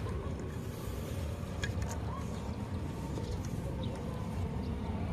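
Steady low outdoor rumble, with a few faint light clicks about two seconds in.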